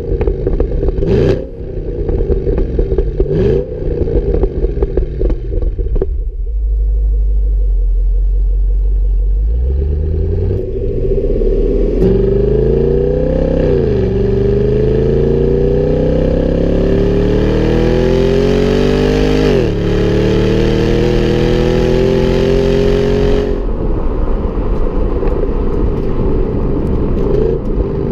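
Holden Commodore SS V Ute's 6.2-litre LS3 V8, heard close at its twin exhaust tips. It gives a few sharp throttle blips, settles to a low rumble, then goes to full throttle about ten seconds in. Its pitch climbs through the gears with two upshifts, each a sudden drop in pitch, and the throttle is lifted a little before the end.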